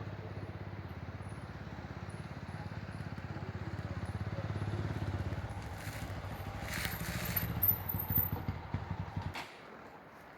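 A motorcycle engine running close by with a fast low chugging pulse, growing louder around the middle, with a few sharper bursts before it cuts off suddenly about nine seconds in.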